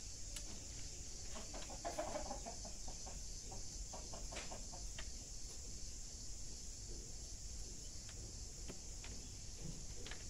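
A chicken clucking in a short run about two seconds in, over a steady high-pitched drone of insects.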